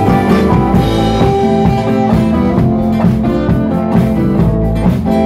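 Live rock band playing an instrumental passage between verses: electric guitars strumming, electric bass and a drum kit keeping a steady beat, with the singer playing harmonica from a neck rack.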